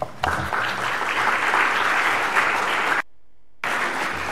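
Audience applauding at the end of a talk. The sound drops out completely for about half a second around three seconds in, then the applause carries on.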